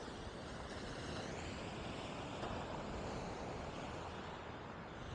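Surf breaking along the beach and wind blowing across the microphone: a steady rushing noise with no distinct events.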